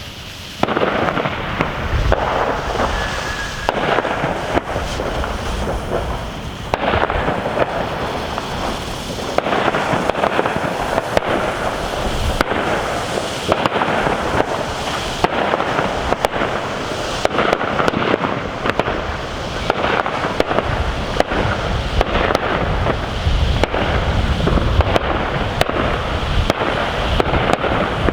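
Homemade firework with 90 grams of net explosive mass going off without a break: a dense stream of crackles and sharp bangs that starts suddenly about half a second in.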